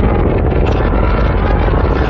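Loud, steady rumbling aircraft-engine sound effect, heaviest in the low end.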